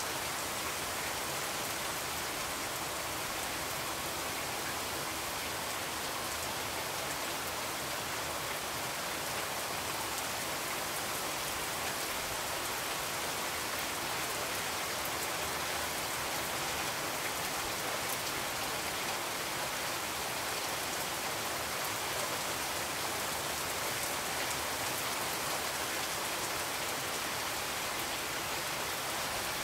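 A steady, even hiss like falling rain that holds level without a break.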